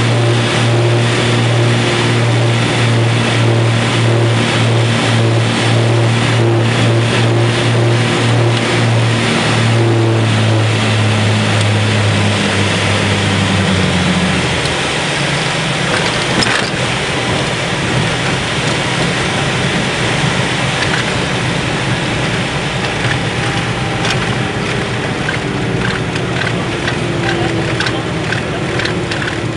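Cabin drone of a Cessna 402's twin piston engines and propellers, steady at first, then falling in pitch about halfway through as power is pulled back, leaving a lower rumble and rushing air noise.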